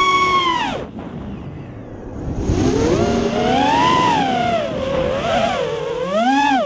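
Racing quadcopter's electric motors whining, the pitch rising and falling with the throttle. About a second in the whine cuts out almost completely for over a second, leaving a rushing noise, then it comes back with a rising glide and keeps wavering.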